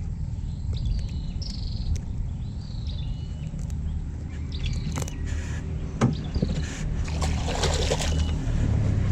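A bird chirps over and over, about once a second, above a steady low rumble. A click comes about six seconds in, then a brief noisy burst a second later.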